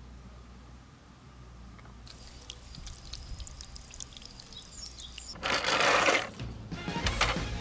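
Water from a drinking-fountain tap splashing and trickling into a stone basin, starting about two seconds in with fine patters and drips. Near the end a much louder rushing noise comes in, stops briefly, and starts again.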